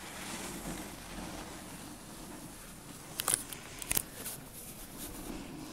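Quiet open-air ambience on a moving chairlift: a faint steady hiss with a low murmur. A few sharp clicks come about three seconds in and again about a second later.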